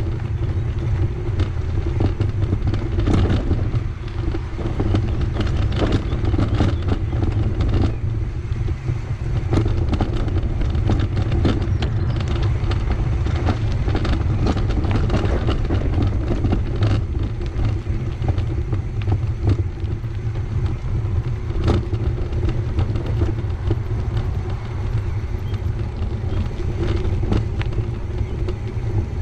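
Steady wind buffeting and road rumble from a bicycle rolling along a paved path, with scattered small clicks from bumps.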